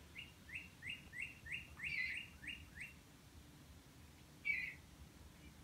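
A songbird calling: a quick run of about eight short, falling notes, roughly three a second, then a pause and one louder call near the end.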